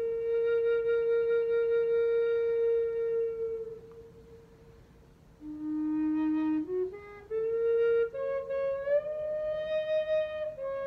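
E-flat flute of old-growth white Atlantic cedar, a Native American–style end-blown flute, playing a slow melody. One long held note fades out about four seconds in, a short pause follows, then a low note, and the tune steps up through higher notes.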